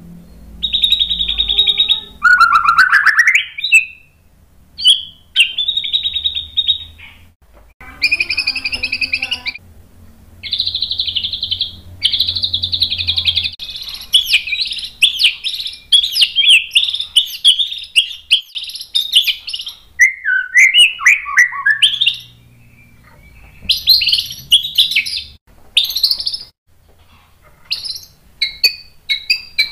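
White-rumped shama (murai batu) singing in loud bursts of rapid high phrases, the forceful 'tembakan' song that keepers prize. About two seconds in one phrase rises in a sweeping whistle, and around twenty seconds in comes a run of falling notes.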